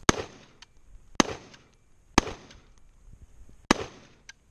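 Four single gunshots, each a sharp crack with a short echo, spaced about a second apart with a longer gap before the last.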